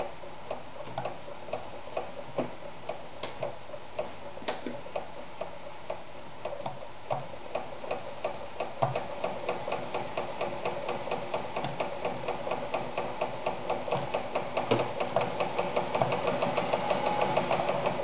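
1975 Pfaff 294 sewing machine stitching thin stretch knit fabric: the needle and rotary hook mechanism ticks slowly at first, then speeds up to a fast, even clatter from about halfway on.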